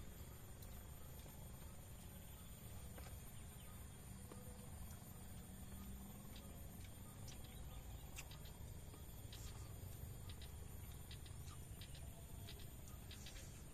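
Quiet rural ambience: faint short bird chirps scattered over a low steady rumble, more frequent in the second half.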